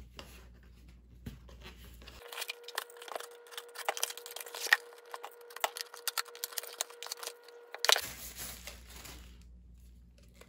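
Packaging being handled and torn open: rustling, crinkling and tearing, with a quick run of sharp crackles densest in the middle.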